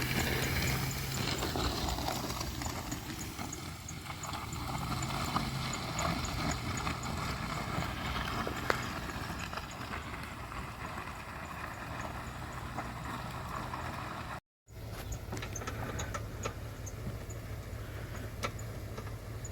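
Yukon SUV's engine running steadily with a low hum, with light ticking and rustling over it. The sound cuts out completely for a moment about three-quarters of the way through.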